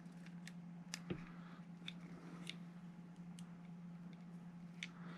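Faint, scattered small clicks and ticks of an Allen key turning a grub screw into an airsoft rifle's lower receiver, the receiver being turned by hand at the same time, over a steady low hum.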